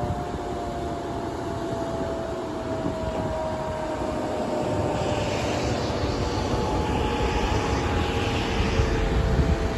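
Power station siren winding down: one steady wail sliding slowly lower in pitch. A rushing hiss of water over the spillway comes in about halfway through.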